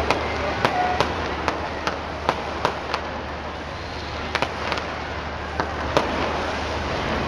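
Aerial fireworks going off in a quick, irregular string of sharp cracks and pops, about two a second with a short lull midway, over the steady hubbub of a large crowd.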